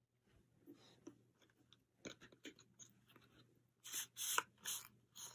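Cardboard digipack album cover being handled and opened by hand: soft scattered rustling and scraping of card, with three louder rustles near the end.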